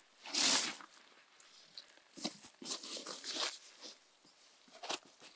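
Closed-cell foam sleeping pad being folded and handled: one loud scraping rustle about half a second in, then scattered softer rubbing and scuffing sounds.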